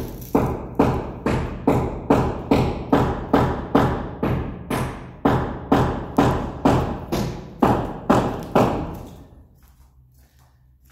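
Footsteps on a bare ceramic tile floor in an empty, unfurnished room: an even walking pace of about two and a half steps a second, each step echoing. The steps die away about nine seconds in.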